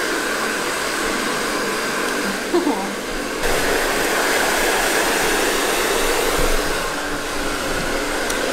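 Handheld hair dryer blowing steadily while drying a small wet dog; about three and a half seconds in its hiss gets brighter.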